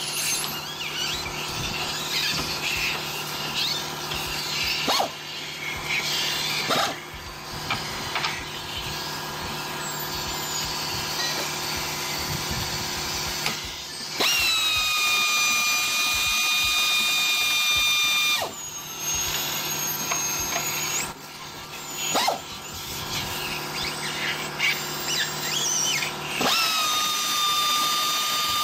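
Pneumatic air ratchet running on the nuts of a car's front strut top mount, with a steady high whine. It stops and restarts several times, with short clicks at each stop and start.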